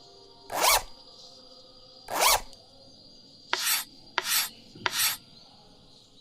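Rope rubbing as it is pulled and drawn through a knot: five short swishes, two spaced out, then three in quicker succession.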